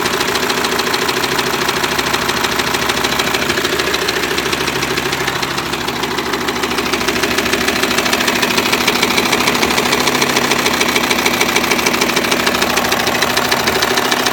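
Volkswagen Touareg's 2.5 R5 TDI five-cylinder diesel idling steadily with a rapid, repeating knock from the engine.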